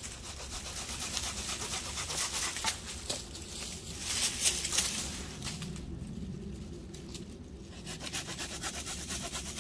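A blade cutting and scraping a freshly cut green tree limb in repeated strokes. The strokes ease off for a couple of seconds past the middle.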